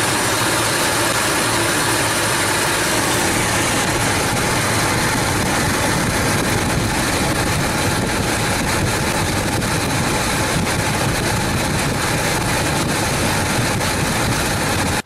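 A 1997 Ford Expedition's V8 engine idling steadily, heard up close at the alternator and serpentine belt drive. It runs on a newly fitted serpentine belt that replaced a worn, noisy one, and the owner judges that it sounds better.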